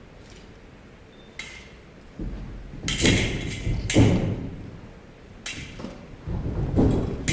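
Foil fencers' footwork on a wooden stage: stamps and thuds of advances and lunges, the loudest about three and four seconds in, with short metallic rings of steel blades touching.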